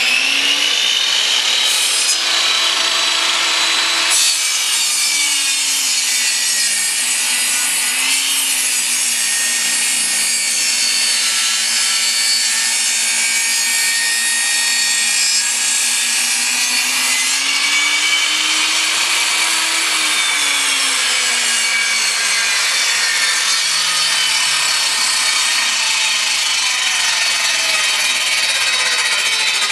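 Benchtop table saw cutting 3/4 inch plywood: a loud, steady whine and rasp of the blade through the wood, its pitch dipping and recovering under load. Near the end the pitch falls steadily as the blade winds down.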